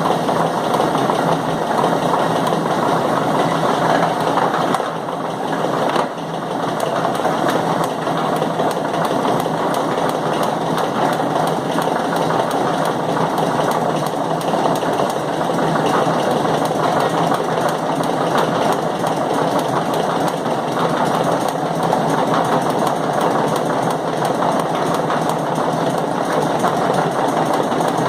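Chain-driven machine running with a continuous rapid, regular knocking, and one louder knock about six seconds in. The owner links the periodic loud knocking to the chain, which he thinks takes about a minute to go round once.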